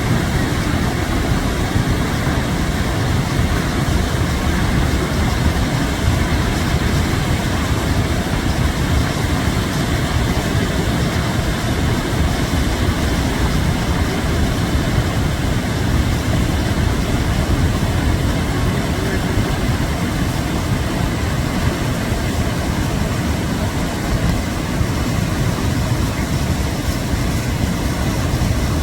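Swollen floodwater rushing loudly and steadily in a continuous low roar after heavy rain.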